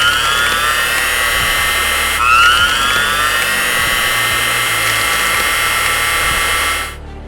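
Chainsaw running at high speed, revving up twice, the second time about two seconds in, with a steady high-pitched whine. It cuts off suddenly near the end, leaving faint music.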